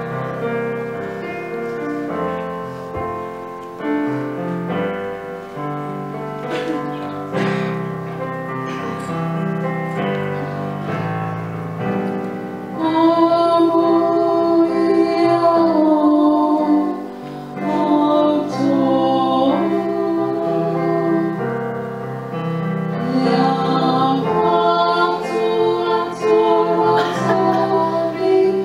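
Electric keyboard playing a slow hymn accompaniment. About halfway through a woman's voice comes in singing the hymn through a microphone, louder than the keyboard.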